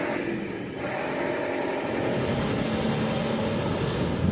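Suzuki Grand Vitara SUV's engine running steadily as the vehicle drives away over muddy ground.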